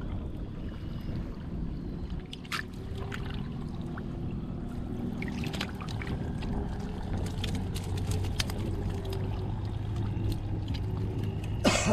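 Water splashing and sloshing in a shallow muddy channel as hands grope for catfish, with short splashes here and there. Under it runs a steady low motor hum, which grows stronger from a little past the middle.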